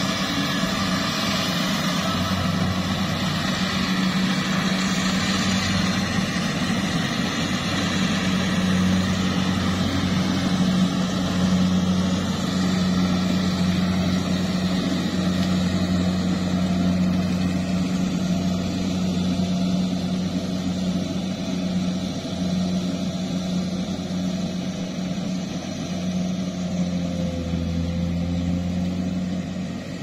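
Rice combine harvester's engine running steadily as it harvests, a steady low drone.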